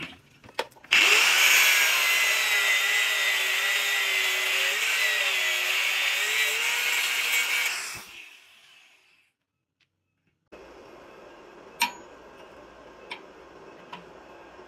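Electric angle grinder grinding the end of a steel rebar to a point: a loud, steady whining grind for about seven seconds that then winds down and stops. A few light metal clicks come just before it and later, over a quiet background.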